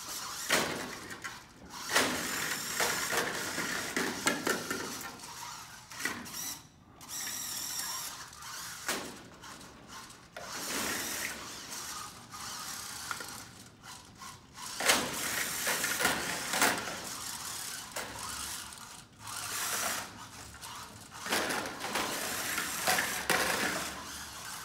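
VEX competition robot's electric drive motors and gear trains whining in repeated bursts of one to three seconds as it starts, stops and turns, with the clatter of its intake rollers handling plastic balls.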